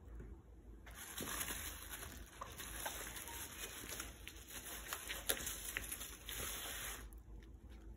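Plastic packaging crinkling and rustling with many small crackles as a plastic-wrapped magazine is slid out from among the bubble wrap in a cardboard box. It starts about a second in and stops a second before the end.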